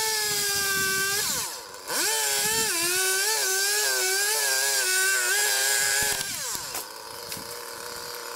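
Two-stroke chainsaw revved to full throttle for about a second, dropping briefly to idle, then held high for about four seconds with its pitch dipping and wavering under load as it cuts, before falling back to idle.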